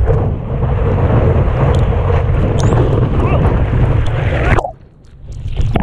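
Surf and whitewater rushing past a surfboard, with heavy wind buffeting on the board-mounted camera's microphone. About four and a half seconds in, the rush cuts off abruptly to a muffled hush for about a second, then splashing comes back.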